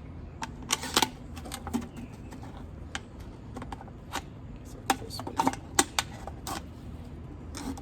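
Sharp scissors cutting through a thin plastic water bottle: a string of irregular crisp snips and plastic crackles.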